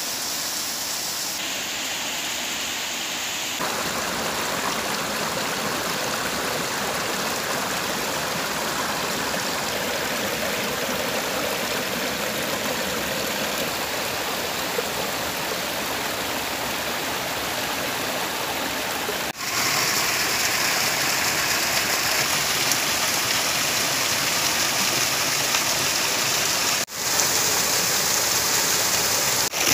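A small rocky stream and its little cascades rushing and splashing over boulders, a steady watery noise. The sound breaks off briefly twice, about two-thirds of the way in and near the end, and is louder after the first break.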